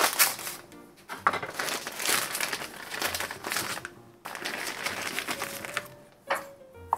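Plastic sausage packet crinkling and rustling as it is torn open and handled, in several long bouts with short breaks.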